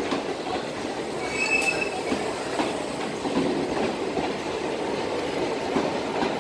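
Passenger coaches of a departing express train rolling past a platform, with a steady noise of wheels on rails. A brief high wheel squeal comes about a second and a half in.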